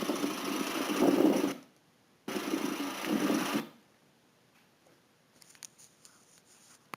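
Peugeot 407's 1.6 HDi diesel engine running with a rapid ticking clatter. The sound cuts off abruptly after about a second and a half, comes back for about a second, then stops again.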